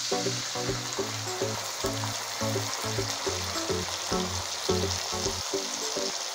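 Background music with a regular beat over steady sizzling: water just poured into hot oil with frying shallots and curry leaves in a kadai.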